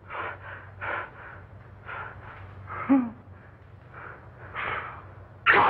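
A man breathing heavily in short audible puffs, roughly one or two a second, with a brief voiced sound about three seconds in; a loud laugh breaks out near the end.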